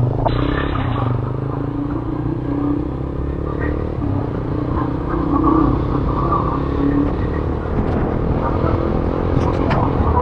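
A steady low engine hum, with faint voices now and then.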